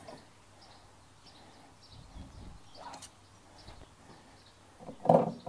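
Quiet outdoor ambience with faint bird chirps. A single light click comes about three seconds in, and a short, louder muffled sound follows near the end.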